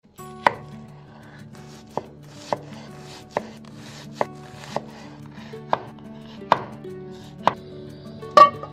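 Chef's knife slicing an onion on a wooden cutting board: about ten sharp knocks of the blade on the board at an uneven, unhurried pace. Near the end comes a louder knock with a short ring.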